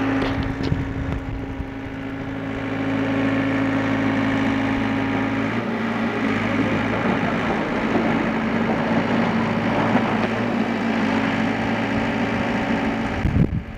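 Volvo EC55C compact excavator's diesel engine running steadily under hydraulic load while the machine levers itself up onto a dump truck bed with its arm and bucket. The engine note shifts about halfway through, and the sound drops away just before the end.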